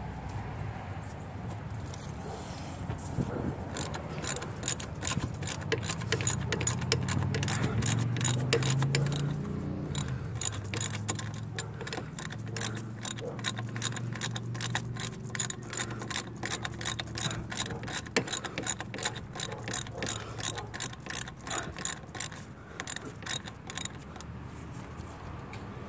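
Socket ratchet wrench clicking in quick runs as a bolt is turned in the engine bay, over a low background hum.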